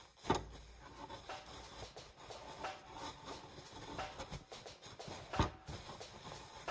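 Paper towels rustling and crinkling as raw chicken breasts are patted dry by hand. A soft thump comes just after the start and another about five seconds in.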